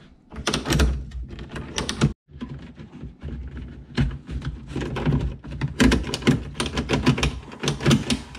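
Irregular clicks, taps and knocks of hard plastic as a whitewater kayak's outfitting is handled: the seat and backband ratchet fittings are worked at the cockpit rim. The clicks come more densely in the second half.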